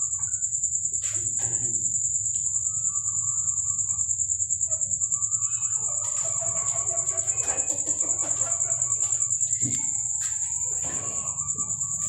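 Crickets trilling, a steady high-pitched, rapidly pulsing trill. Bird calls and a few clicks come through in the second half.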